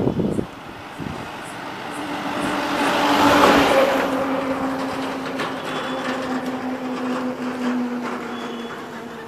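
A heavy road vehicle passing close by: tyre and engine noise swell to a peak about three and a half seconds in and then fade, with a steady engine hum underneath.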